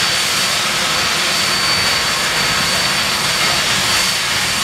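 Handley Page Victor K.2's Rolls-Royce Conway turbofan engines running on the ground. It is a steady, loud rushing noise with a high, even whine over it.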